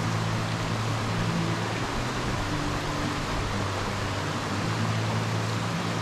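Waterfall rushing steadily, with low held music notes changing beneath it.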